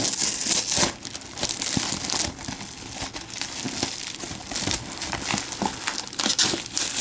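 A brown paper parcel being torn open by hand: the paper and packing tape rip loudly in the first second, then keep crinkling and crackling as the wrapping is pulled apart.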